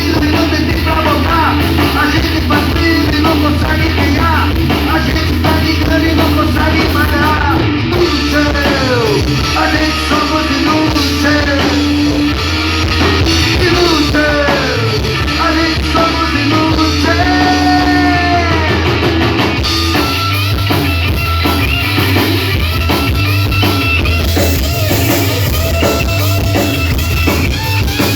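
A rock band playing live: drum kit, bass and guitars, with a melodic line sliding up and down in pitch through the middle. The arrangement changes about twenty seconds in.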